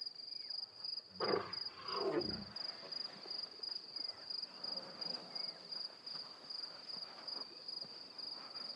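Night insects, likely crickets, chirping steadily at a high pitch, several chirps a second. About a second in come two short, louder, lower sounds, roughly a second apart.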